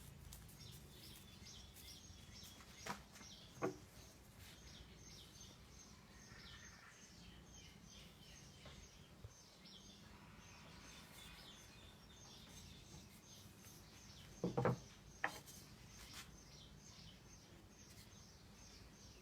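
Faint bird chirps repeating evenly, about three a second, over a low steady hum, with a few short knocks: two about three seconds in and a quick cluster about fifteen seconds in.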